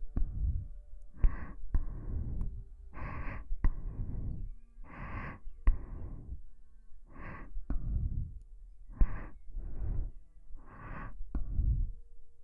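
Slow breathing right up against a binaural dummy-head microphone's ear: about six breaths in and out, each a hushed higher breath followed by a lower breathy puff onto the mic, roughly one every two seconds. A few short sharp lip clicks fall between them.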